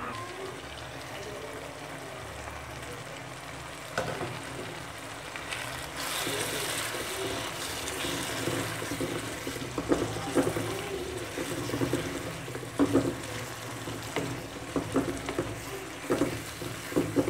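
Onion-tomato masala with freshly added ground spices sizzling in hot oil in a kadai. About six seconds in the sizzle grows louder, and from about ten seconds on a spatula scrapes and taps repeatedly against the pan as it is stirred.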